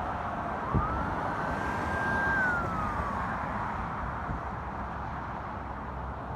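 An emergency vehicle's siren wailing over steady street traffic noise: one rising sweep about a second in, held briefly, then falling away. A single thump comes just before the sweep.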